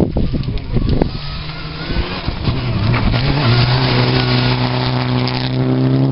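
Mitsubishi Lancer Evolution rally car at full throttle on a gravel stage, its engine running at high revs over a steady spray of gravel hissing from the tyres. The engine note climbs about halfway through and then holds high.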